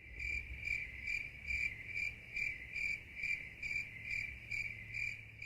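Insect chirping: one high note pulsing evenly about twice a second, stopping abruptly near the end.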